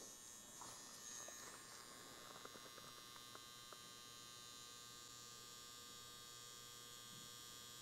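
Faint, steady hum of a DragonHawk X8 wireless rotary pen tattoo machine running at 7250 RPM, with a few faint ticks about two to four seconds in.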